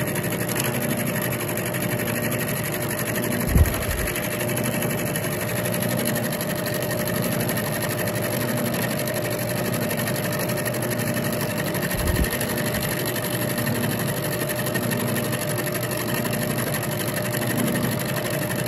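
Milling machine running with a roughing end mill climb milling the side of a metal T-nut blank: a steady machining drone. Two short low thumps come through, one a few seconds in and one past the middle.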